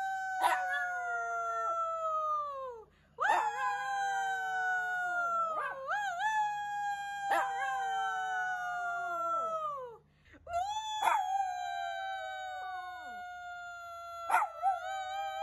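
Shih Tzu howling: drawn-out howls, each held for several seconds, sliding slowly down in pitch and dropping away at the end. A few short sharp clicks break in between.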